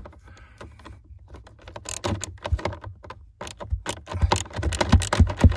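Socket ratchet clicking in quick irregular runs as an 8mm screw holding the cabin blower motor is backed out.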